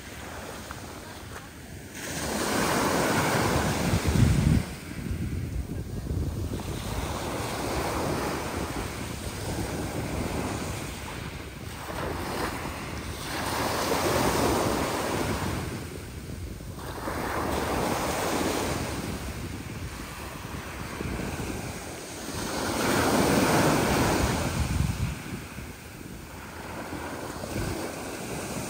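Sea waves breaking and washing in a roughening sea, surging every few seconds and falling back, with wind buffeting the microphone.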